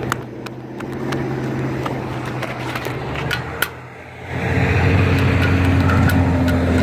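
Novax accessible pedestrian signal speakers ticking over road traffic. About four seconds in, a vehicle close by grows loud and runs steadily.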